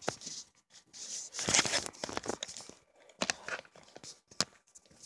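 Rustling and rubbing noise of a phone being handled, its microphone brushing against fabric, followed by a few short sharp clicks and taps.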